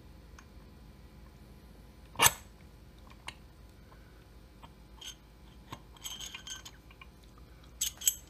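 Small metal parts clicking and clinking as a circlip installer tool is pressed to fit a wrist-pin circlip into a chainsaw piston, on an attempt that fails to seat the clip: one sharp snap about two seconds in, then scattered light clicks and a run of metallic clinks near the end.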